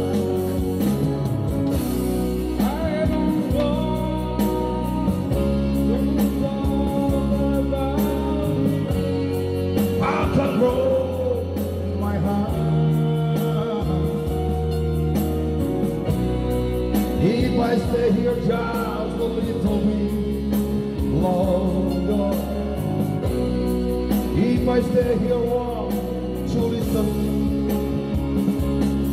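Karaoke backing track of a rock song with guitar and keyboard, with a man singing along into a microphone.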